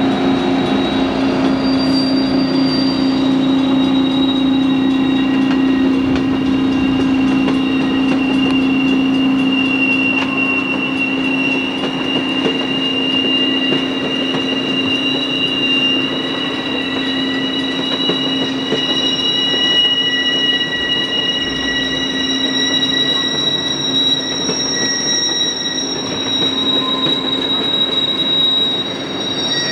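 Passenger train led by Burlington Northern EMD F-unit diesel locomotives rolling past, with the locomotives' low engine drone strongest for the first several seconds and then fading as the passenger cars follow. Steady high-pitched wheel squeal from the cars rises and falls over the rolling noise.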